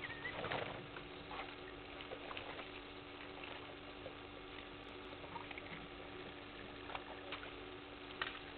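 African elephants drinking at a waterhole: irregular soft splashes and slurps of water as they draw it up with their trunks, over a steady hiss and low hum.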